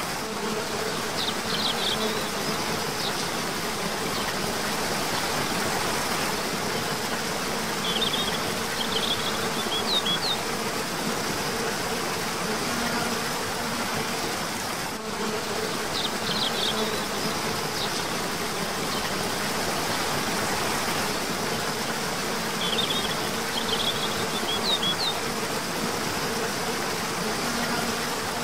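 Waterfall rushing steadily, with a low buzz like an insect's drone under it. Short high bird chirps come in brief clusters four times.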